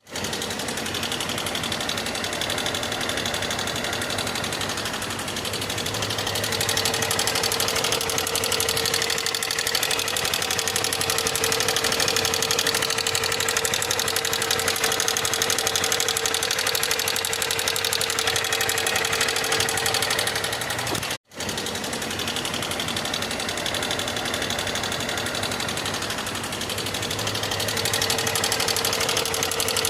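Honda CG 160 Fan motorcycle's single-cylinder engine running with a steady, fast mechanical clatter: a strange noise that has come back for the second time in under 6,000 km. The sound cuts out for an instant about two-thirds of the way through.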